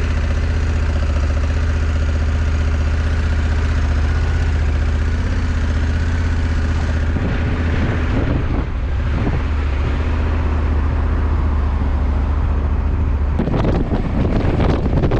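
Honda CRF1100 Africa Twin's parallel-twin engine running at a steady pitch on the move. Wind buffeting on the microphone comes in near the end.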